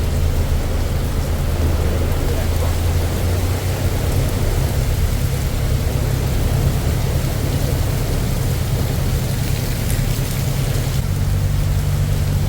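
Heavy rain pouring down on a songthaew's roof, a steady hiss, with the pickup truck's engine running as a low, even drone underneath.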